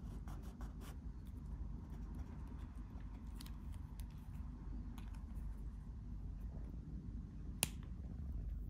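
Faint scratching and ticking of a Sakura Pigma Micron 05 fine-liner pen nib on paper as a signature is drawn, over a low steady hum. One sharp click comes near the end.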